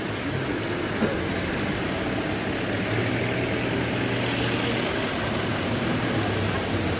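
A motor vehicle's engine running steadily as a low hum over even background noise.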